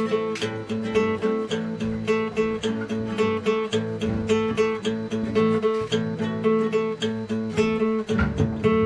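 Background music on acoustic guitar: plucked and strummed notes in a steady, even rhythm.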